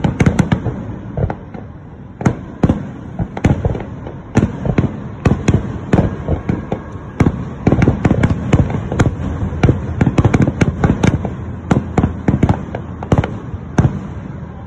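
A fireworks display with many aerial shells bursting in quick, irregular succession: sharp bangs, some nearly overlapping, thickest in the middle. The bangs stop shortly before the end.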